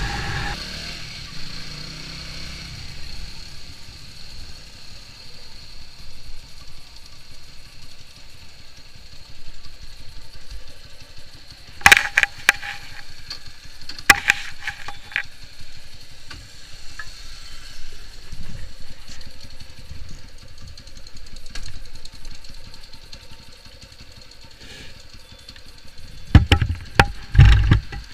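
Single-cylinder four-stroke engine of a carburetted TVS Apache RTR 200 motorcycle, warmed up and idling after the riding sound drops away about half a second in. Sharp clicks come around twelve to fifteen seconds in, and loud knocks come near the end.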